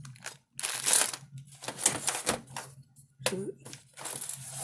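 Irregular clicking and rustling of small hardware and packaging being handled, with a faint steady hum underneath.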